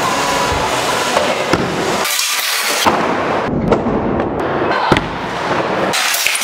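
Scooter riding in a plywood bowl: steady noise from wheels rolling on the wood, with several sharp knocks from wheels and deck hitting the ramp.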